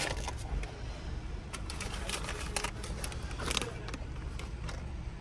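Paper takeout bag rustling and crinkling in a few short, irregular rustles as it is held open, over a low steady car-cabin rumble.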